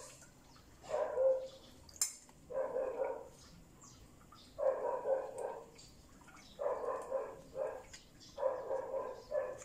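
An animal calling over and over: clusters of a few quick calls, each cluster about a second long, coming about every two seconds.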